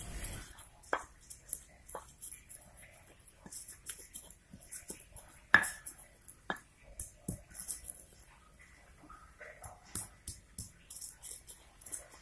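Stone pestle pounding and grinding shallots, garlic and candlenuts in a stone mortar (cobek): irregular sharp knocks and scrapes of stone on stone, the loudest a little over five seconds in.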